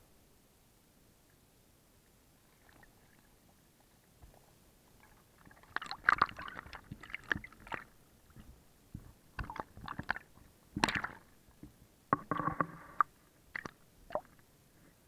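Small catfish bumping and nibbling against an underwater camera's housing, heard as irregular knocks, taps and short scrapes. The sounds start about five seconds in, and a couple of longer rasping scrapes come near the end.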